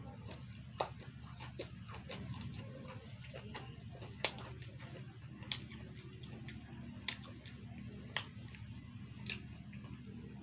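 Eating sounds: sharp, short mouth and chewing clicks at irregular intervals, about one every second or so, over a low steady hum.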